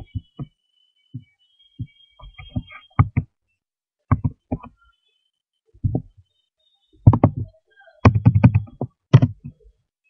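Computer keyboard and mouse clicks picked up by the recording microphone as dull, irregular taps, with a quick run of keystrokes about seven to nine and a half seconds in as a web address is typed and entered.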